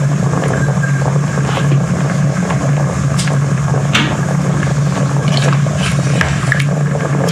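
A steady low machine hum throughout, with scattered clicks, knocks and wet handling noises as pieces of goat meat are packed into a pressure cooker.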